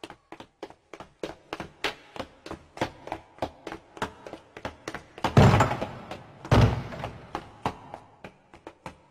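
Quick footsteps on a hard floor, about three or four a second, with two heavy thuds about a second apart a little past the middle.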